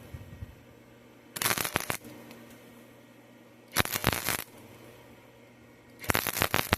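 Arc welder crackling in three short bursts under a second each, about two seconds apart: stitch-welding back and forth to fill a hole burned through galvanized steel pipe.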